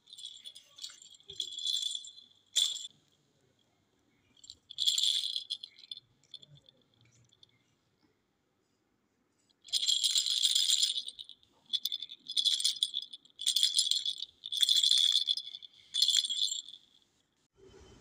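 A hollow plastic rattle-ball bird toy shaken in bursts, jingling and rattling: a few short shakes in the first seconds, one more a little later, then a quick run of shakes from about halfway through.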